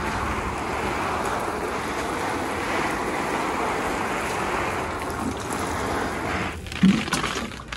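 Water showering from the rose of a plastic watering can onto peat and soil in small plastic seedling pots, a steady spray that stops near the end, followed by a brief bump.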